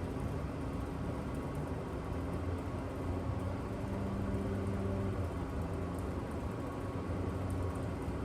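Steady low background rumble of distant city traffic and machinery, with a constant low hum running through it.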